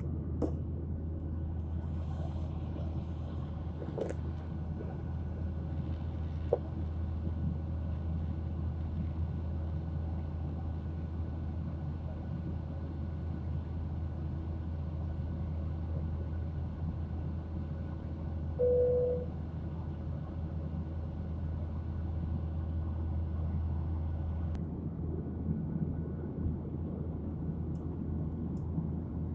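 Steady low cabin drone of a Boeing jetliner climbing out, heard from inside the cabin. A single short tone sounds once about two-thirds of the way through.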